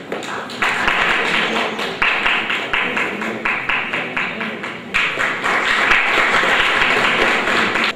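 Audience applauding: dense clapping that swells up in surges and cuts off abruptly near the end.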